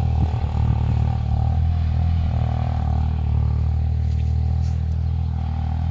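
Farm tractor engine running steadily under load as it pulls a cultivator through the field, a continuous low drone.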